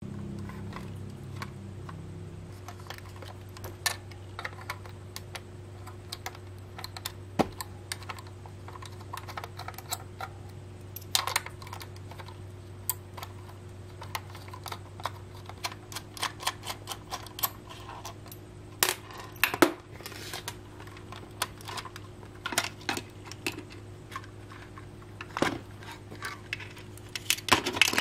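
Irregular small clicks and taps of a 1/24-scale diecast Porsche Macan Turbo model being taken apart by hand: a small screwdriver working screws, and metal and plastic parts clicking against each other and the wooden desk. A steady low hum runs underneath.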